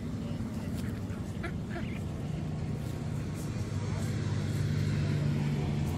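Low, steady engine drone that grows louder toward the end, with a few faint short calls above it.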